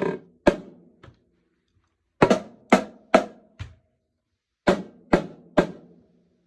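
Marching snare drum with a newly fitted head struck in short groups of three or four strokes with pauses between, each stroke ringing briefly: test hits while the new head is being tuned.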